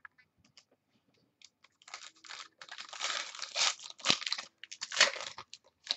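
Trading card pack wrapper being torn open and crinkled by hand, a few light clicks first, then a run of crackly tearing and rustling with several louder surges.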